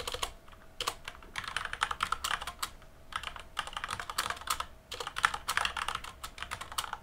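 Typing on a computer keyboard: quick runs of key clicks in about three spells, with short pauses between them.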